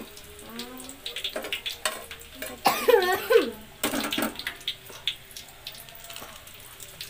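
Burger buns sizzling on a hot ridged grill pan, with a few short clicks of metal tongs as the buns are turned. A voice is heard briefly about three seconds in.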